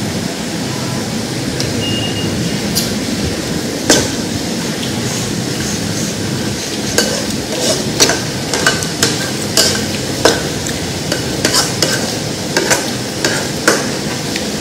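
Chicken and greens frying in a pan with a steady sizzle. A metal utensil clinks against the pan once about four seconds in, then repeatedly from about seven seconds in as the food is stirred.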